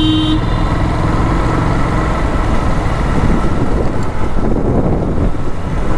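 Motorcycle riding in road traffic: a steady rumble of engine and road noise with wind buffeting the microphone. A horn blares at the start and cuts off about half a second in.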